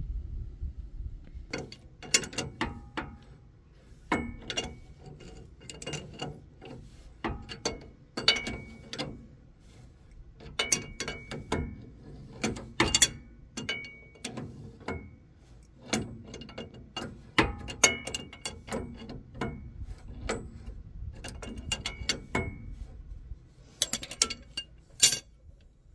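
Steel adjustable wrench clicking and clinking against a nut at the ball-joint end of a steel track bar as it is turned and reset in short strokes. The clinks come in irregular clusters about every second, some with a brief metallic ring.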